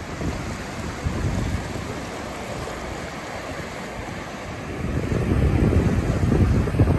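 Small waves breaking and washing up the beach, mixed with wind on the microphone; the rumble grows louder about five seconds in.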